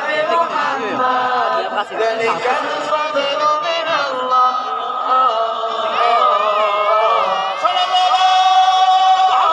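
Many voices chanting a sholawat, an Islamic devotional song in praise of the Prophet, sung together in a slow melody, with a long held note near the end.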